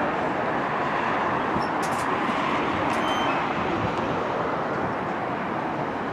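Steady rumble of a subway train approaching along elevated steel track toward the switches, blended with city traffic noise, with a couple of faint clicks in the middle.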